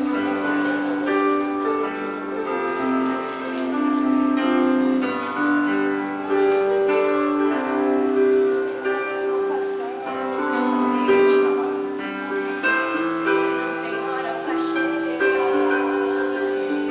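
Electronic keyboard played in a piano sound: a slow tune of held notes and chords.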